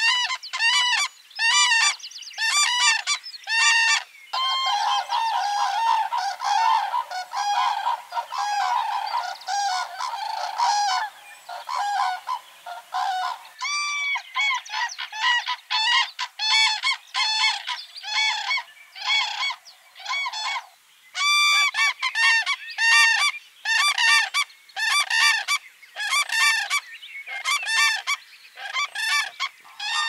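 Common cranes calling: repeated loud trumpeting calls from several birds, overlapping into a dense chorus for a stretch in the first half. It is the breeding-season unison calling of crane pairs, given with bills pointed skyward.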